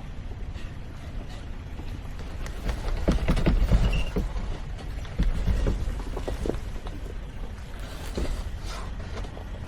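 Off-road 4x4 working over a trail drop: a low engine rumble with knocks and clunks from the vehicle. It swells louder about three seconds in and again just after five seconds.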